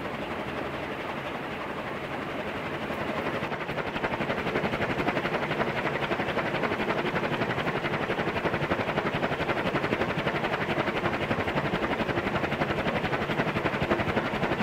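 A 140 cm ceiling fan with three curved metal blades running fast, its air rushing with a fast, even pulsing from the passing blades. The rush grows louder about four seconds in.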